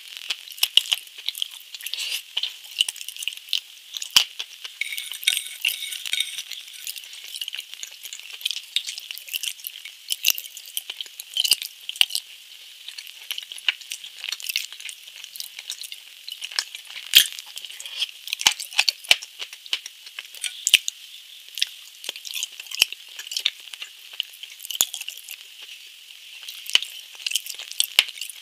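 Close-miked ASMR eating sounds: a dense run of small clicks and crackles from chewing, broken by a few sharper clinks of a fork on a glass plate.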